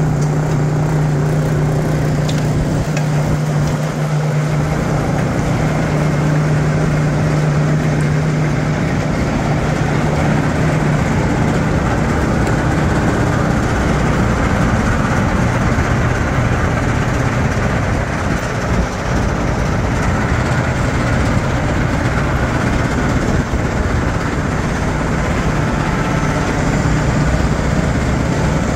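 CAT diesel engine of a McCloskey S190 tracked rinser screener running steadily, with a low drone that stands out for the first nine seconds or so.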